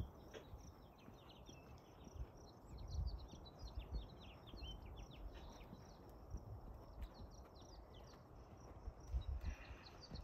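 Quiet outdoor ambience: many quick, high chirps keep up throughout, with a few low rumbles of wind on the microphone.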